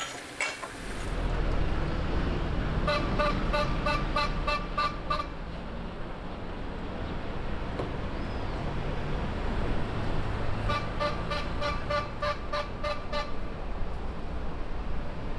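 Street traffic rumbling steadily, with two runs of short pitched beeps, about three a second, one a few seconds in and another near the end.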